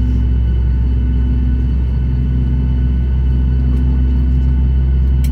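A Boeing 737 MAX's CFM LEAP-1B turbofan engine running during startup, heard inside the cabin. It makes a loud, steady low rumble with several steady whine tones above it.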